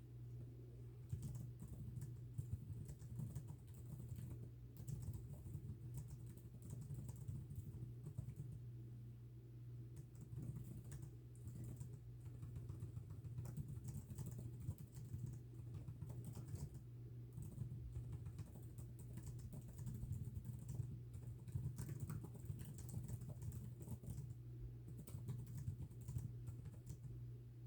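Fast, continuous typing on a computer keyboard: a dense, irregular run of key clicks with brief pauses, over a steady low hum.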